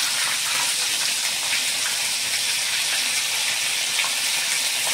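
Chilli-marinated whole fish frying in hot oil in a pan, second side down after turning: a steady sizzle with a few faint crackles.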